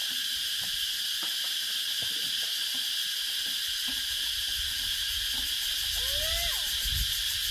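Steady, high-pitched chorus of insects chirring without a break. A few faint rising-and-falling calls come near the end.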